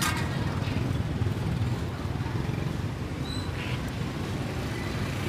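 Steady low motor hum, like an engine or generator running close by in the street, with a click at the start and a few faint short high chirps a little past the middle.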